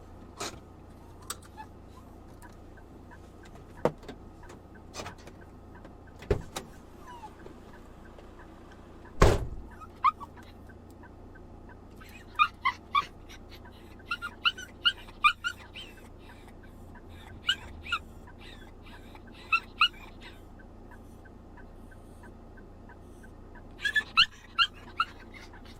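Several sharp knocks, the loudest about nine seconds in, then a dog yipping in many short, high-pitched calls from about twelve seconds on, with another cluster near the end.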